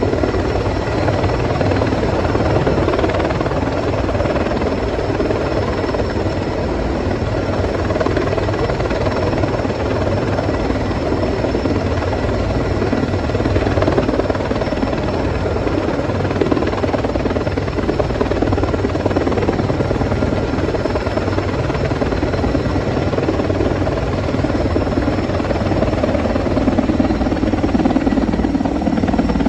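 Sikorsky S-64 Air-Crane heavy-lift helicopter hovering close by, its rotor and turbine engines making a loud, steady noise. Near the end it pulls away and the pitch drops.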